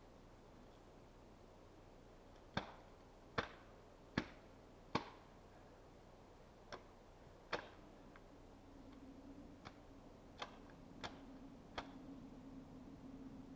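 Sharp wooden knocks of an axe striking wood: four firm blows about a second apart, a pause, then a run of lighter ones. A faint low steady hum comes in about two thirds of the way through.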